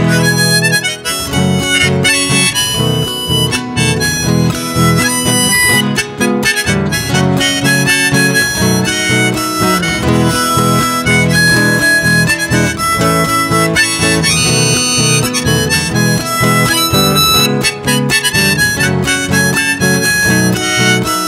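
Harmonica played in a neck holder, a melodic instrumental solo over strummed acoustic guitar, between sung verses of a folk song.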